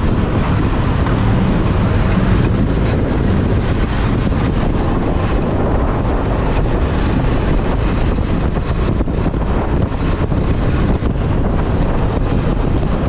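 Steady, loud riding noise from a moving motor scooter: wind buffeting the microphone over the scooter's engine and the surrounding street traffic.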